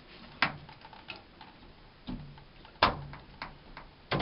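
Handwork clicks and knocks as a new washing-machine water inlet valve is fastened with its two mounting screws: about five sharp, irregular clicks, the loudest about three seconds in.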